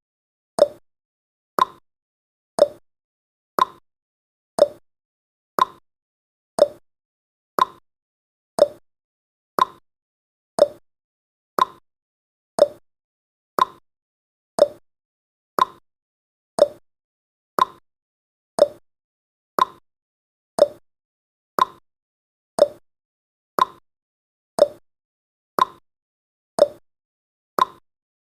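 Countdown timer's clock tick sound effect, one sharp tick a second, alternating lower and higher in pitch like a tick-tock.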